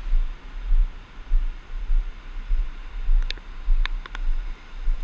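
Storm wind buffeting the microphone in gusting low rumbles, over a steady hiss of wind and surf, with a few sharp ticks about three to four seconds in.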